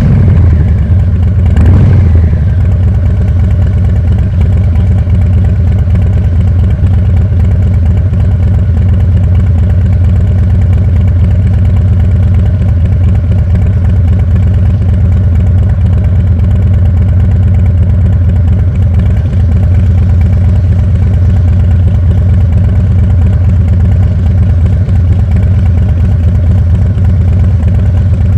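Harley-Davidson Breakout 117's Milwaukee-Eight 117 V-twin idling steadily, with one short throttle blip about two seconds in.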